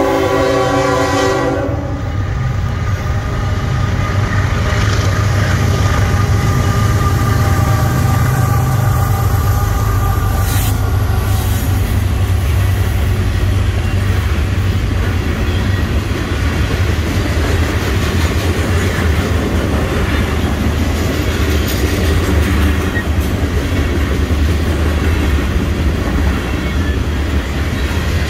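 Norfolk Southern freight train's horn sounding, cutting off about two seconds in, then the train rolling past close by: a steady deep rumble with the clatter of freight cars on the rails.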